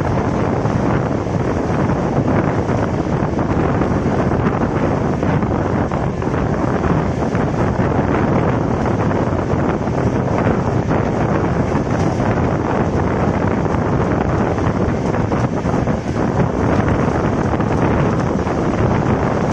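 Wind buffeting the microphone held out of a moving passenger train, over the steady running noise of the coaches on the rails.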